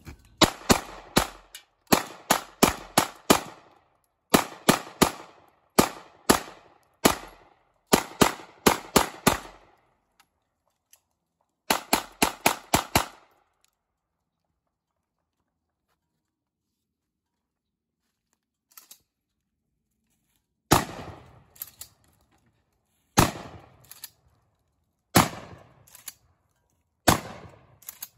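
A 9mm and a .22 pistol fired rapidly in quick bursts of four to six shots for about thirteen seconds. After a pause of about seven seconds, a sawed-off 12-gauge shotgun fires single shots about every two seconds, each fading out slowly.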